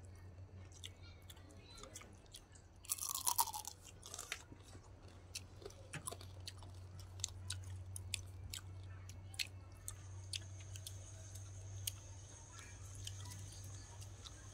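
People chewing and crunching food close to the microphone, with many sharp crunchy clicks and a brief louder burst about three seconds in. A steady low hum runs underneath.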